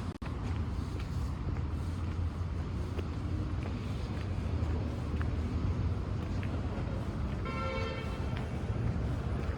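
City street ambience with a steady rumble of traffic, and a short car horn toot about eight seconds in.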